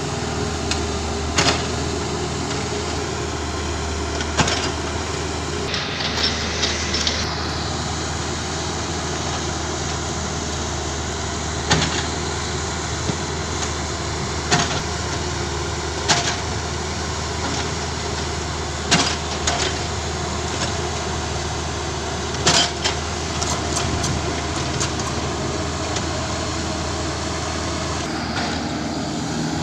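Kubota mini excavator's diesel engine running steadily with a deep hum. Sharp knocks come every few seconds from the machine at work, and a brief high hiss comes about six seconds in.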